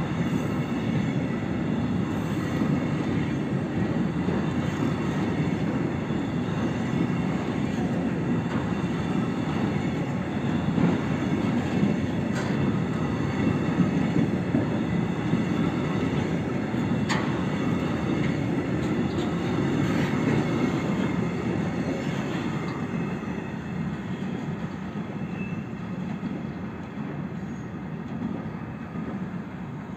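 Train of Hbbillns sliding-wall freight wagons rolling past on the rails, a steady rumble of wheels with a few brief sharp clicks around the middle. The sound eases off near the end as the last wagon moves away.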